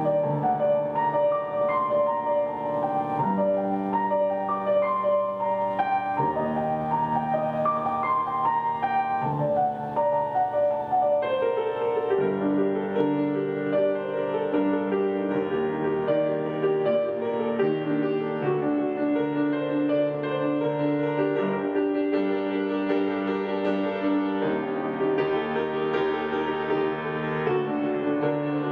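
Piano playing an instrumental break of a slow song: a melody moving over held chords, with no singing.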